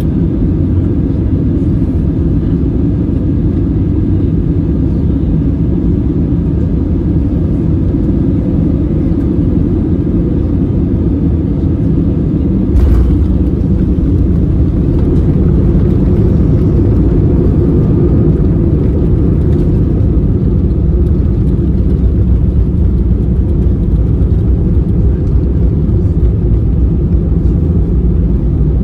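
Steady low rumble of an Airbus A320 heard from inside the passenger cabin: engine and airflow noise. There is one brief knock about 13 seconds in.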